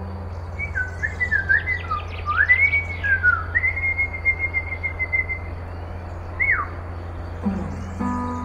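Bird-like whistled calls: a run of sliding whistles rising and falling, then one long held note, and a quick falling whistle near the end, over a low steady hum.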